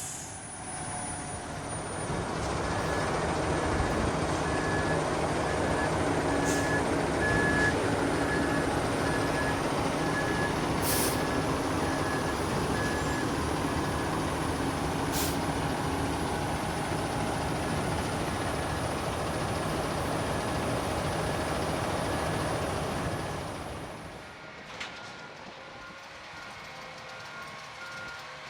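Concrete mixer truck backing up: its diesel engine running loudly with the reversing alarm beeping steadily, and a couple of short air-brake hisses. About 23 seconds in the engine noise drops away, leaving a fainter, lower-pitched reversing beeper.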